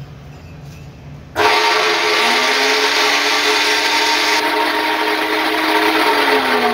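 Hitachi CC14STD 14-inch cut-off machine's brushed motor switched on about a second and a half in, then running steadily at full speed with a loud whine. The new armature's gear is meshing with the year-old mating gear, which the repairer expects to make a little noise until the two wear in.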